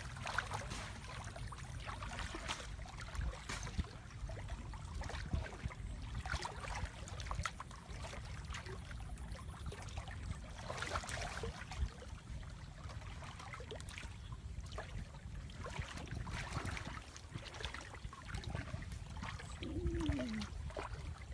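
People wading through shallow water, with irregular splashing steps over a steady low rumble.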